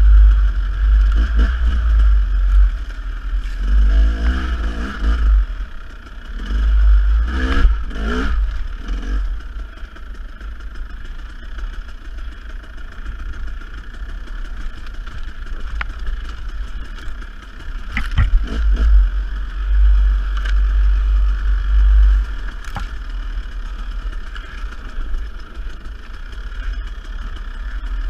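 Dirt bike engine running and revving up and down on a trail ride, with heavy low rumble and occasional sharp knocks and clatter, the loudest about two thirds of the way through.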